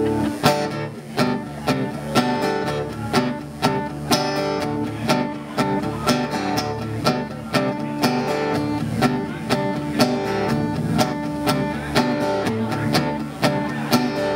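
Acoustic guitar strumming a steady, upbeat country rhythm with other held notes underneath: the instrumental intro of a song.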